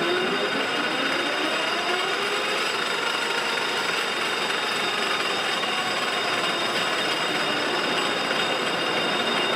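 LeBlond sliding gap bed lathe's geared headstock spinning its large chuck at top speed, 856 RPM: a steady whir with gear whine, its pitch rising over the first couple of seconds as the spindle comes up to speed.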